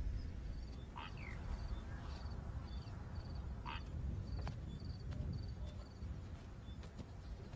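Open-grassland wildlife ambience: a short, high double chirp repeats about twice a second over a steady low rumble of wind. A couple of brief falling calls come about a second in and again nearer the middle.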